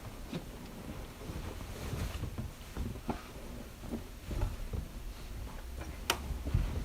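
Cinema auditorium room ambience: a steady low rumble with scattered soft knocks and rustles, and one sharp click about six seconds in.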